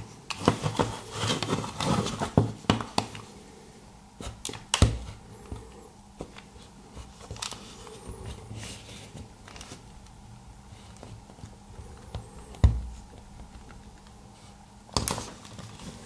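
Utility-knife blade prying and scraping along the seam of a screwless plastic remote-control case. A dense run of scrapes and plastic clicks comes in the first few seconds, then scattered sharp clicks and knocks, the loudest about three-quarters of the way through.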